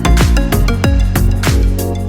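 Background music with a steady electronic drum beat: kick drums and hi-hats under sustained synth chords.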